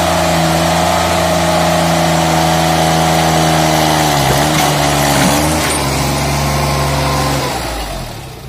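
Sonalika DI 22 mini tractor's small diesel engine running at full throttle under load while the tractor climbs onto bricks. Its pitch sags briefly twice around the middle as the wheels strain over the bricks, then the engine note drops away near the end.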